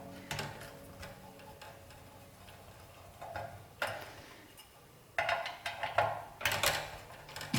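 Small clicks and light knocks of a screwdriver and metal parts being handled while a crypto-mining unit's casing is taken apart: a few separate taps, then a cluster of knocks about five to seven seconds in.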